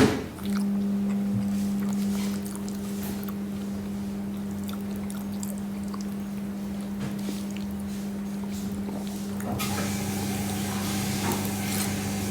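A steady low mechanical hum, like a motor or appliance running, starting just after a click; a soft hiss joins it near the end.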